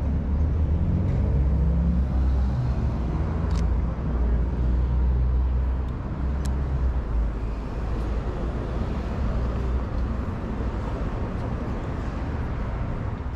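City street traffic noise with a low vehicle engine rumble, heaviest in the first half and easing off later. Two short clicks sound in the middle.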